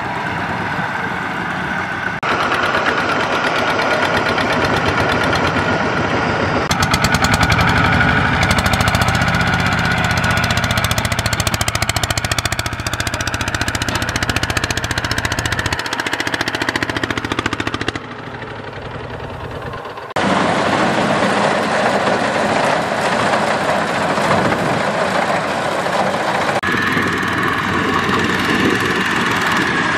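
Single-cylinder diesel engines of two-wheel power tillers (Kubota RT120) running steadily as they pull trailers loaded with rice sacks through stubble. The sound changes abruptly in level and tone several times as one shot follows another, and drops quieter for a couple of seconds about two-thirds of the way through.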